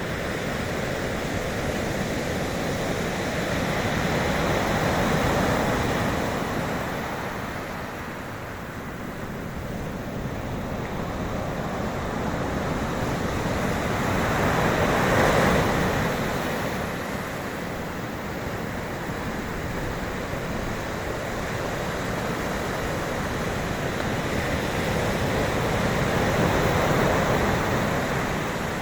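Sea waves surging and breaking. The wash swells and ebbs about every ten seconds, three times, with the biggest surge about halfway through.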